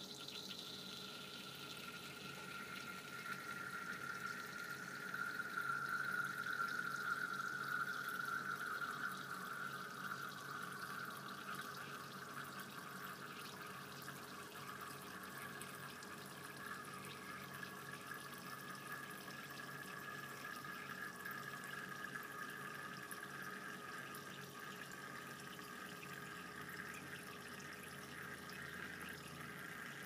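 Water running in a thin steady stream from a glass burette's tip into the water below, louder a few seconds in and then settling a little softer.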